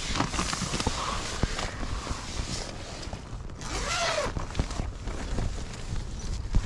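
Wind buffeting the microphone, with scattered clicks and knocks and one short pitched call that rises and falls about four seconds in.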